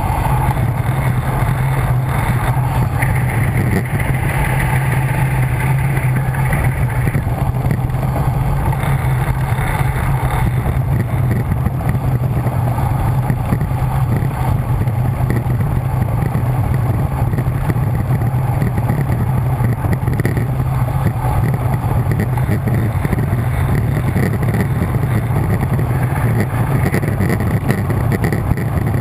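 Wind buffeting the microphone of a camera mounted on a road bike at descending speed: a loud, steady, low rumble that never lets up.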